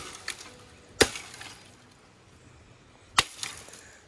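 Bolo knife chopping bamboo branches: three sharp chops, one right at the start, one about a second in and one about three seconds in, with a smaller knock just after the first.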